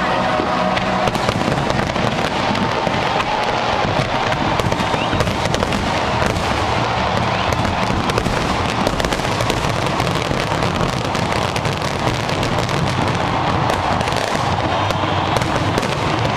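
Fireworks display: a dense, continuous barrage of bursts and crackling with no pause.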